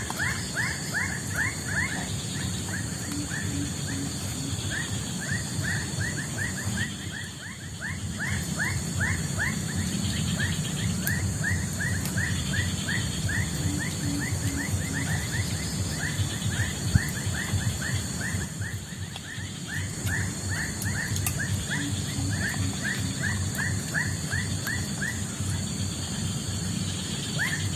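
Rapid series of short falling chirps from a wild animal, about five or six a second in long bouts, over a steady high insect drone in the forest.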